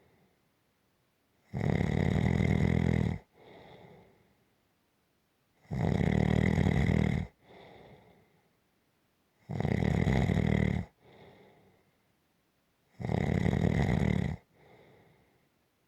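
Snoring in a slow, even rhythm: four loud snores, each lasting about a second and a half and coming about every four seconds, each followed by a softer, shorter breath.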